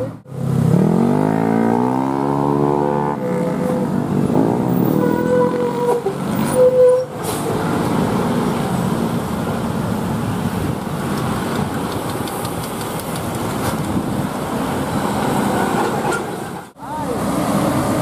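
Road vehicles driving up a bend on a hill road. One engine revs up and eases off in the first few seconds, a few short horn notes sound after that, and then steady traffic and engine noise continues.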